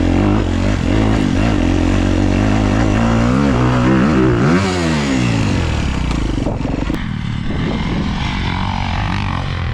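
Dirt bike engine running, revving up and down in quick swells about three to five seconds in, then settling to a slightly quieter, steadier run.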